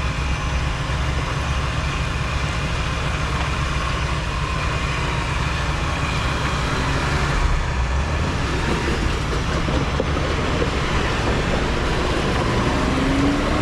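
Off-road vehicle engine running steadily while an electric winch hauls in cable under load, pulling a stuck Jeep up an obstacle.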